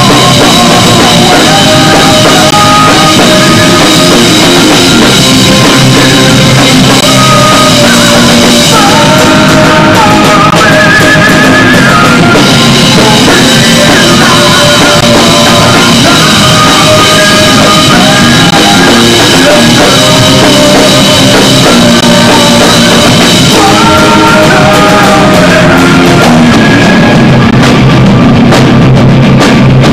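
Rock band playing live and loud: drum kit, guitar and a singing voice.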